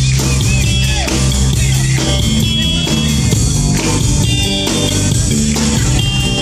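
Rock band playing an instrumental passage with no singing: guitar and bass over a steady drum-kit beat.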